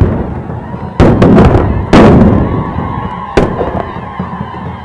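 Flintlock rifles (muzzle-loading muskets) firing in a ragged run of shots: a loud blast about a second in, quickly followed by several smaller cracks, another loud blast about two seconds in and a lesser one past three seconds. Each shot dies away slowly.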